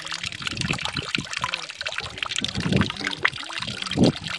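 A thin stream of water pouring into a full basin, splashing and trickling on the water's surface, with a couple of louder splashes near the end.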